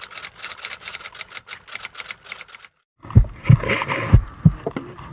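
Rapid typewriter-style key clicks, a sound effect under on-screen text, about nine a second; they stop abruptly after about two and a half seconds. After a short gap, low dull thumps start at about three a second.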